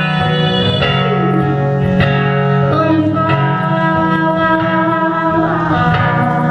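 Live acoustic music: plucked guitar notes over a held low note, with a few sliding sung notes and no words.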